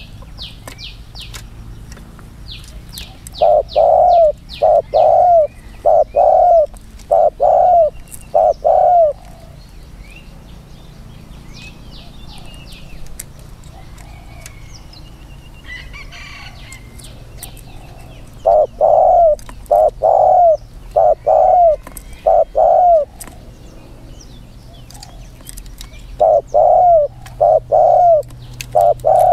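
Spotted dove cooing in three runs of four to six loud, rounded coos, each run a few seconds long with long pauses between. Small birds chirp faintly and high in the background.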